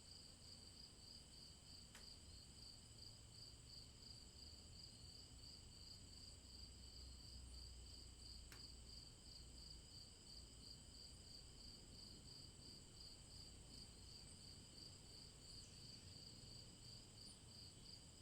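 Faint, steady chorus of crickets on a warm evening: an even, pulsing high chirping with a couple of tiny clicks.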